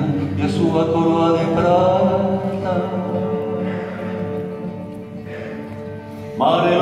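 A man singing live over acoustic guitar, in slow held phrases. The voice eases off in the middle, and a new loud phrase begins near the end.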